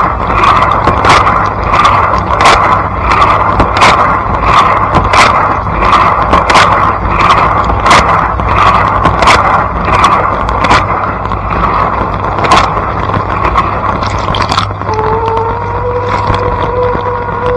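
Blanco dishwasher running, heard from inside the tub: water spray with a regular slap about every 0.7 seconds, over a steady motor hum. The slaps fade out, and about 15 seconds in a steady humming tone from the pump comes in.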